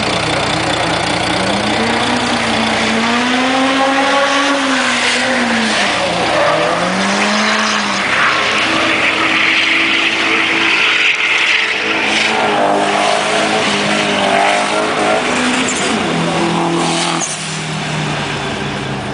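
Drift cars on the track, their engines revving up and down in long rising and falling sweeps, with a stretch of tyre squeal about ten seconds in, over a steady low engine idle. The level drops suddenly near the end.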